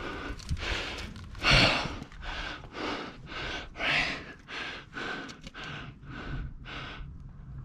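A climber's heavy breathing from exertion on the rock: quick, rhythmic breaths about twice a second, with the strongest breath about a second and a half in.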